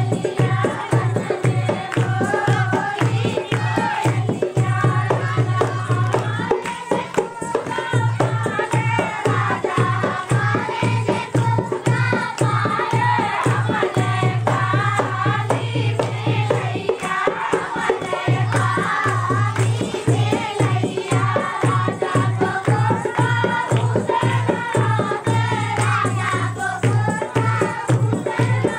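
Indian rural folk dance song: a wavering sung melody over fast, dense drumming with rattling percussion, the deep drum beats dropping out briefly twice.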